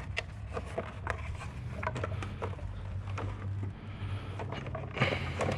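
Irregular clicks and knocks of plastic engine-bay parts and hand tools being handled, with a louder clunk about five seconds in, over a steady low hum.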